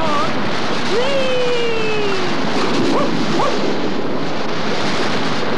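Cartoon sound effect of rushing water, a steady loud roar of noise. About a second in there is a falling tone, and around three seconds in two short rising chirps.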